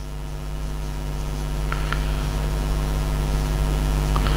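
A steady low electrical hum with many evenly spaced overtones, growing gradually louder. A couple of faint marker strokes on a whiteboard come about two seconds in.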